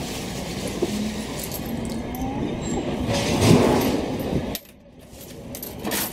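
Steady street background noise, a mix of low rumble and hiss, with a louder burst about three and a half seconds in. Then the noise drops away suddenly for about a second before it returns.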